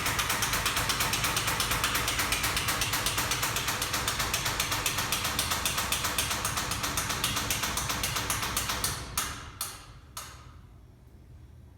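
Boiler-room water pump making a loud, fast, even clatter of clicks, like a ratchet. About nine seconds in it slows to three separate clicks and stops, leaving a faint hum.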